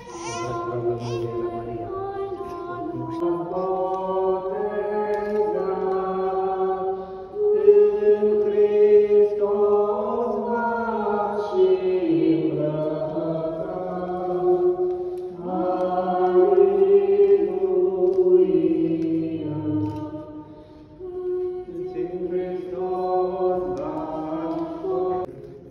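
Eastern Orthodox church chant: a few voices singing a slow baptismal hymn unaccompanied, in long held notes, with short breaks between phrases about a third of the way in and again near the end.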